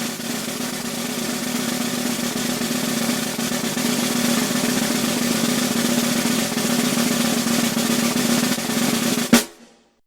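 Snare drum roll, even and dense, growing slightly louder. It ends a little over nine seconds in with one loud accented hit that dies away quickly.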